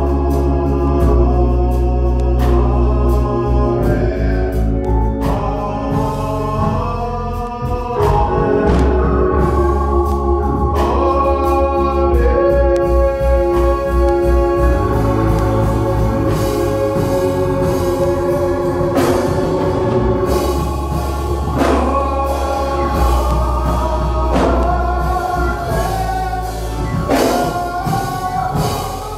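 A man singing a gospel song while accompanying himself on a church organ, with sustained organ chords and long held bass notes under the voice.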